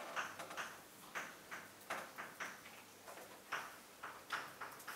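Chalk writing on a chalkboard: short irregular taps and scratches, roughly three a second, as the letters and symbols are written.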